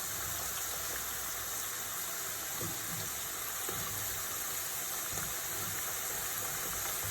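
Cassava pieces deep-frying in hot oil, a steady sizzle; the chips are about done and ready to be lifted out.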